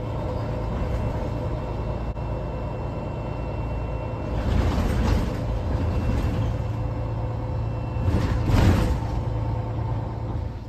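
Interior of a MAN city bus under way: the engine and road noise drone steadily. The noise swells louder twice, about halfway through and again near the end.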